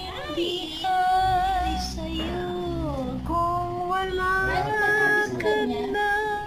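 A woman singing a slow Tagalog song to calm a frightened dog, with long held notes that glide between pitches.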